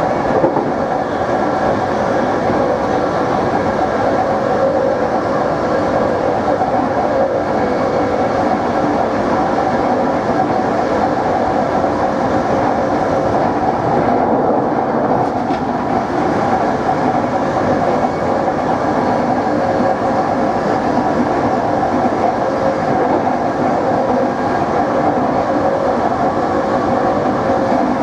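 NS Plan V (Mat'64) electric multiple unit under way, its traction motors humming steadily with several held tones over the rumble of wheels on rail.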